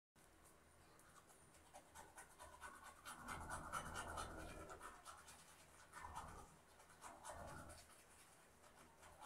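Teeth being brushed with a toothbrush: a faint, rapid scrubbing that grows louder a few seconds in.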